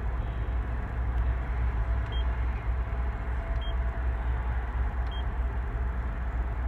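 Steady low rumble of the Cat C Series excavator's engine running, heard in the cab, with three short high beeps from the monitor panel's keypad, about a second and a half apart, as its buttons are pressed.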